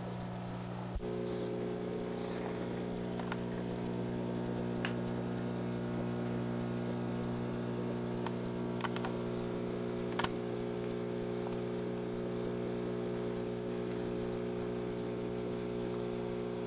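Steady low hum with faint pattering and a few light clicks from the aquarium's air-driven box filter bubbling in the tank. There is a sharp click about a second in, after which the hum gains a higher tone.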